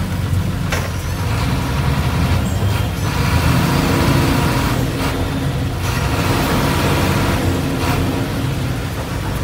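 Ride noise inside a moving city bus: the engine's steady low rumble under road noise, with a few brief louder surges of noise.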